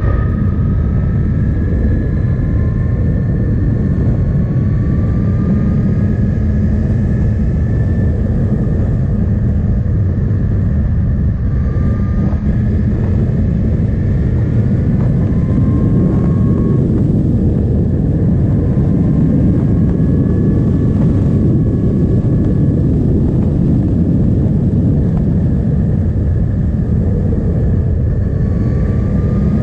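Onboard sound of a Suzuki GSX-S 1000 with an inline-four engine being ridden at speed: a steady rumble of engine and wind on the action-camera microphone. The engine note rises in several stretches as the bike pulls through the revs.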